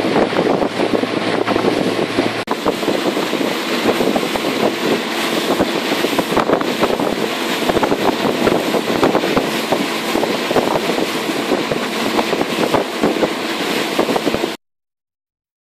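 Wind buffeting the microphone over the steady running noise of a motorboat underway. There is a brief break about two and a half seconds in, and the sound cuts off abruptly near the end.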